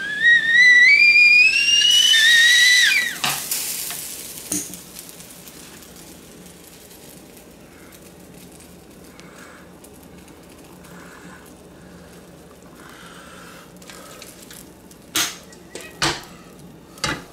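Stovetop kettle whistling at the boil, its pitch rising steadily for about three seconds before it breaks off. Then boiling water is poured from the kettle into a paper ramen cup, a much quieter hiss, and a few sharp clicks come near the end.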